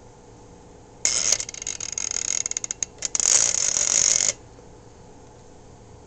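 Rotary dial of an antique candlestick telephone being dialed: a loud ratcheting whir starting about a second in, broken by a run of quick clicks in the middle, and stopping suddenly after about three seconds.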